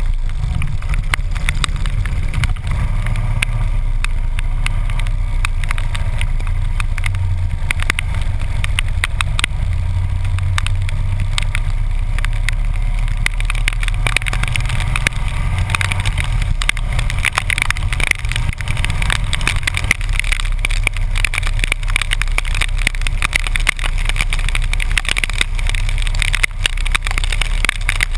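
Harley-Davidson V-twin motorcycle engine running steadily at road speed, low and constant, under wind rush and the hiss of tyres and spray on a rain-soaked road.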